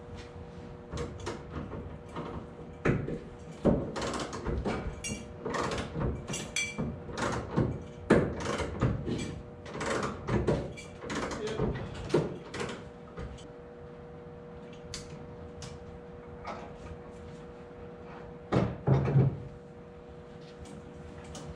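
Irregular clanks and knocks from handling the overhead boat-lift rigging and the boat on its trailer, thick for the first dozen seconds, then a few more knocks near the end, over a steady hum.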